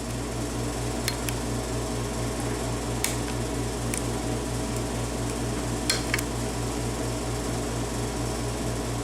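A steady low mechanical hum with a pulsing note, over which a lock pick clicks faintly and sharply a handful of times as it works the pins of a Yale six-pin cylinder lock.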